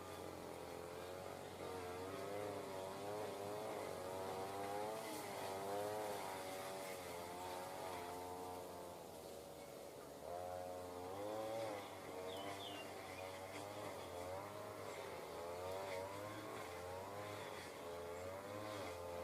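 A small engine running, its pitch swaying up and down about once a second as the revs vary, with a low steady hum beneath. A brief high chirp, like a small bird, a little past the middle.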